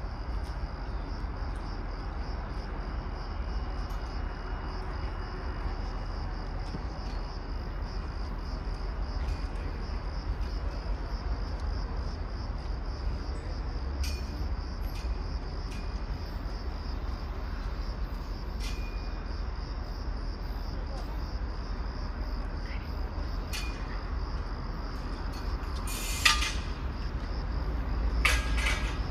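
Insects chirping in a steady, pulsing high trill over a low rumble, with a few sharp clicks from about halfway and a louder knock and clatter near the end as the level rises slightly.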